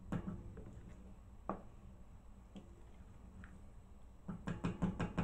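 Wooden spatula stirring thick meat sauce in a stainless steel pot, giving a few scattered sharp clicks against the pot over a low steady hum. Near the end comes a louder quick run of knocks mixed with a voice.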